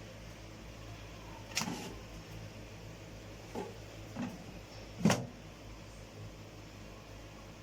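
Four short knocks or clicks, the last the loudest, over a low steady hum.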